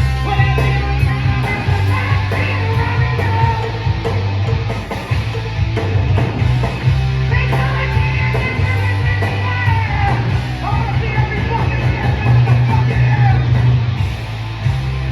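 Live heavy metal band playing loud and without a break: distorted electric guitars, bass and drums, with a high wavering lead line above them.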